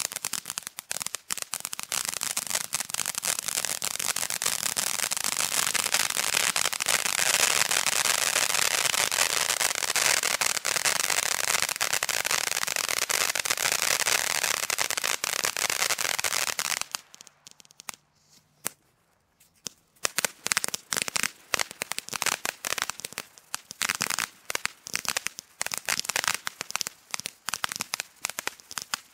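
Rizer Fireworks 'Whiplash' ground fountain burning: a continuous hissing spray thick with crackling for about seventeen seconds, a near-silent gap of about two seconds, then a dense run of sharp crackles.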